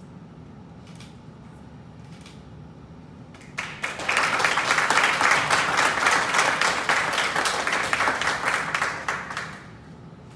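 Audience applauding, starting suddenly about three and a half seconds in and dying away about six seconds later.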